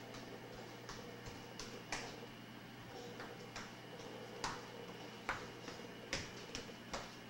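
Sparse, irregular light clicks and taps over a steady low hum.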